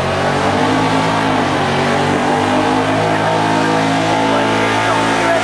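Holden VH Commodore's V8 engine held at high, steady revs with the rear tyres spinning at the start of a burnout.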